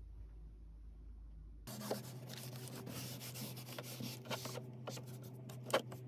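A tissue rubbed over dusty surfaces behind a computer monitor, heard as a run of scuffing wiping strokes that begins about two seconds in, with a sharper knock just before the end.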